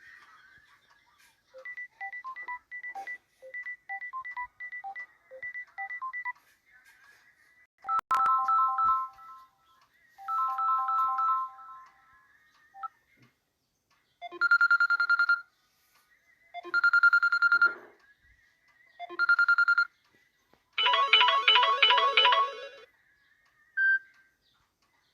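Samsung Galaxy A30 phone playing a run of its built-in ringtones and alarm tones, each for a few seconds. First comes a melody of quick short beeps, then two chimes, then three repeated buzzing tones and a rapid pulsing alarm.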